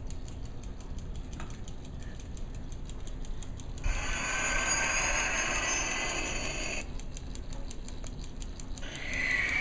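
Electronic sound effects from the small speaker of a battery-powered Hess toy spacecraft: a rapid, even ticking pulse, with a louder whooshing engine noise that comes in about four seconds in, stops, and returns near the end.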